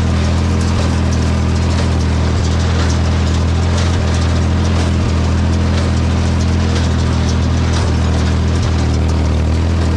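Ford 4000 tractor engine running steadily at a constant speed, with a few faint knocks every second or two.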